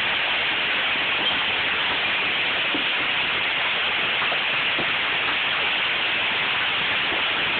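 Heavy storm rain pouring down, a steady dense hiss with no letup.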